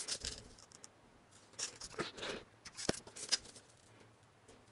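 A sheet of paper and a metal ruler being handled and shifted on a tiled floor: short bouts of paper rustling and sliding, with a sharp tap about three seconds in.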